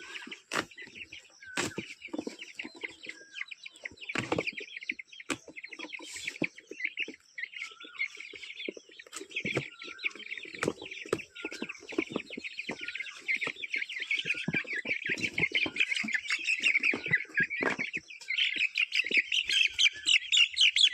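A box of Aseel chicks peeping constantly in a dense high chatter that grows louder near the end, with scattered knocks and bumps.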